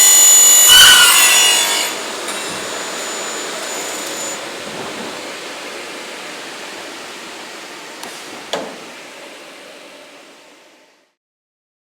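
Double-head aluminium cutting saw: the blades run with a loud high-pitched whine through about the first two seconds, then the level drops sharply and the spinning blades fade away over about nine seconds, with one sharp knock shortly before they fall silent.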